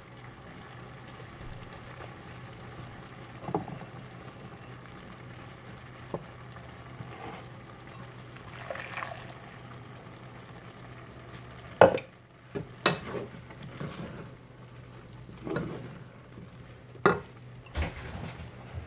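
Cloth straining bag being handled in a glass measuring cup to strain fresh cashew milk. Scattered knocks and clinks against the glass, the sharpest about twelve and seventeen seconds in, over a steady low hum.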